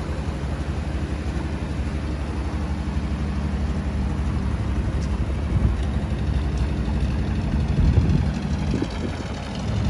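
1950 Willys Jeepster's 148-cubic-inch inline-six idling steadily, louder near the end as it is heard from the tailpipe end.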